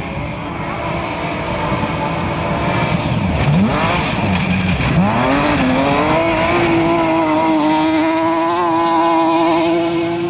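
Rally car engine at full throttle; about three seconds in the revs drop sharply and climb straight back, then hold high and keep rising.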